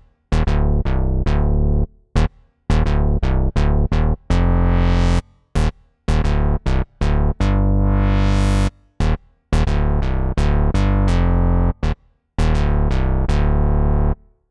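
Unfiltered Audio LION software synthesizer playing a bass-heavy sequence of short, punchy notes in a stop-start rhythm, with a few longer held notes. The brightness opens up in sweeps, most of all on a long note just past halfway.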